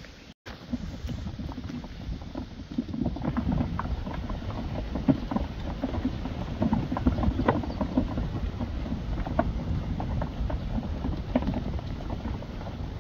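A flock of sheep moving through grass: many small irregular hoof clicks and rustles over a steady low rumble. The sound drops out briefly just after the start and gets busier from about three seconds in.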